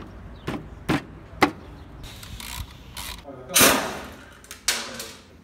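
Mechanic's tools working on a scooter's wheel. A few sharp metallic clicks come in the first second and a half, then two louder rushing bursts, at about three and a half and four and a half seconds in.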